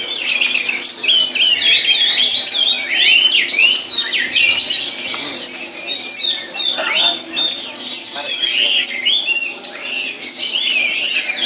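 Many caged songbirds singing at once, a dense, unbroken tangle of rapid high chirps, whistles and trills.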